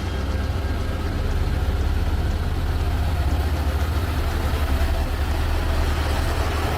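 Heavy diesel engine of a Sitrak G7 540 truck, loaded with six excavators, pulling steadily at low revs up a steep mountain grade, with a deep, rapid throb.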